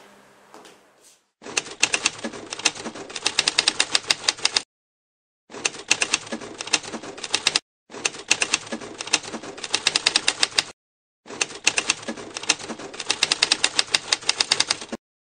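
Typewriter keys clacking in rapid strings, four runs of two to four seconds each with short silent gaps between them, starting about a second and a half in.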